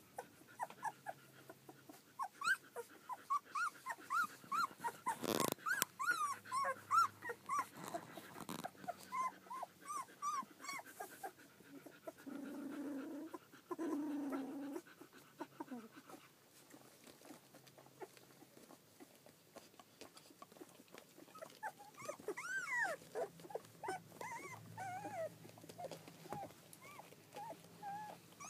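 Two 15-day-old collie puppies play-wrestling, giving many short high squeaks and whimpers, with a low growl from about twelve seconds in that lasts a couple of seconds. A single sharp knock comes about five seconds in.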